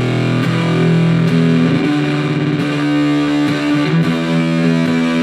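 Electric guitar through an Old Blood Noise Endeavors Haunt Fuzz pedal with every knob turned fully up, giving a thick, saturated fuzz tone. Sustained notes and chords ring out, changing pitch a few times.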